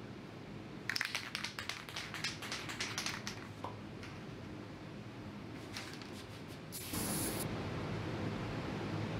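Aerosol can of multi-purpose spray adhesive being shaken, its mixing ball rattling in quick clicks for about two seconds, then a short hiss of spray about seven seconds in. A steady rushing noise sets in with the hiss and carries on.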